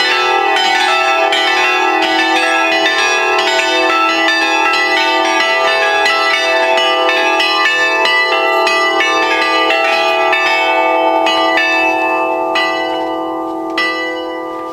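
A set of church bells hung in a steel frame, rung by an automated system in a fast peal of many overlapping strikes. The strikes thin out in the last few seconds, with one sharper strike near the end, and the bells ring on.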